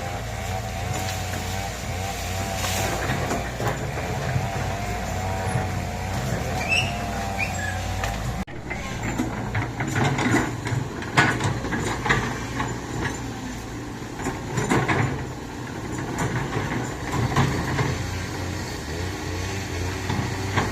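Excavator's diesel engine running steadily. For the first several seconds a wavering whine rides over it; after an abrupt cut about eight seconds in, irregular knocks and clatter sound over the engine.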